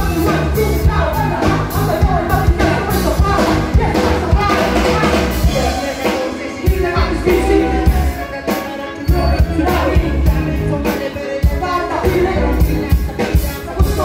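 A live band with drum kit, bass and electric guitar playing a steady beat through the PA, with a rapper's vocals on a microphone over it.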